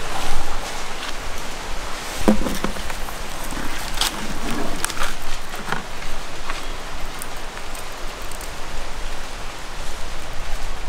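Leaves crinkling and rustling in the hands as a stuffed fish is wrapped in a leaf parcel and tied, with irregular sharp crackles over a steady rushing background noise.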